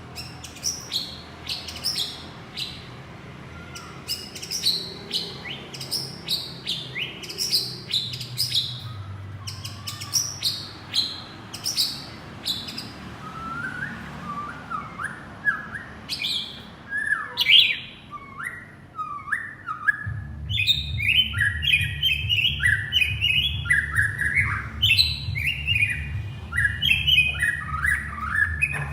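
Male white-rumped shama singing: long runs of short, quick, downward-slurred whistles, high and clear at first, then lower notes, then a fast dense run near the end. A low rumble comes in about two-thirds of the way through.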